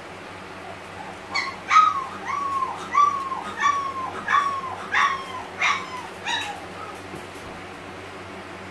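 A young puppy giving a string of about ten short, high cries, each falling in pitch, over about five seconds, then falling quiet.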